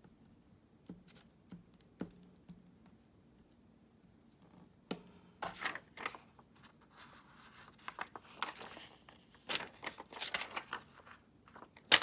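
Sheet of alcohol-inked acetate (transparency film) crinkling and crackling as it is handled and flexed, starting about five seconds in, with a sharp crackle near the end. Before that there are only a few light taps.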